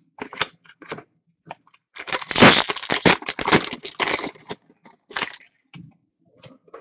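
Crinkling and crackling of a trading-card pack wrapper being handled. It is densest and loudest for about two seconds in the middle, with scattered lighter crackles before and after.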